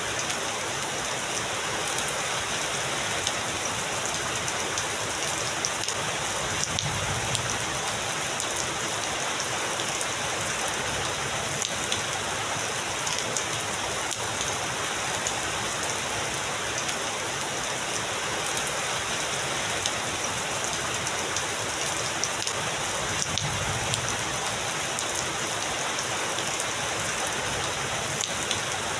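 Heavy rain falling steadily, a dense even hiss with fine patter of drops striking a surface. Twice, about seven seconds in and again near the end, a faint low roll of distant thunder swells under it.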